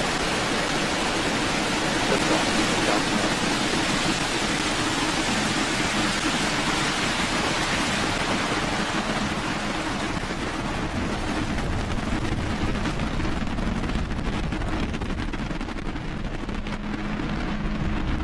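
Falcon 9 first stage's nine Merlin 1D engines at liftoff: the steady roar of rocket exhaust. Its high hiss slowly fades as the rocket climbs away.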